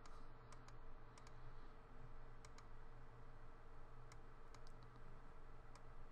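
Computer mouse clicking: scattered light clicks, several in quick pairs, over a faint steady electrical hum.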